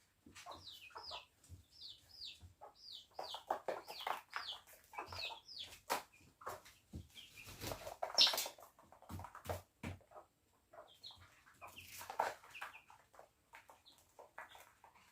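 Young chicks peeping: a run of short, high cheeps that each fall in pitch, over scattered sharp taps and scuffles. There is a louder flurry of rustling about eight seconds in and another near twelve seconds.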